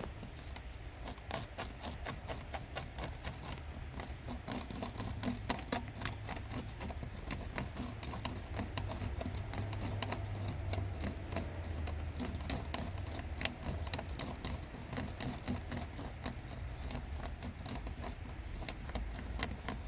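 Small, rapid, irregular scraping and clicking of two-part JB Weld epoxy being stirred and mixed by hand, over a low steady hum.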